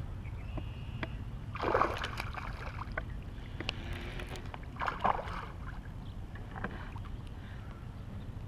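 Wind rumbling on the microphone over water lapping at a rocky lakeshore, with two short splashy bursts about two and five seconds in and a few faint scattered ticks.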